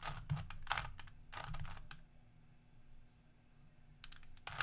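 Plastic Rubik's cube being twisted by hand, its layers turning with quick clicks: a run of turns in the first two seconds, a pause, then more turns near the end.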